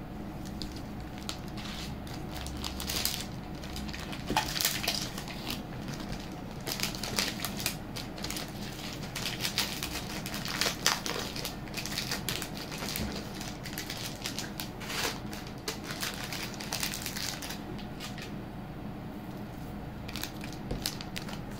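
Irregular crinkling, crackling and clicking of handling noise as beaded jewellery and its plastic packaging are moved about.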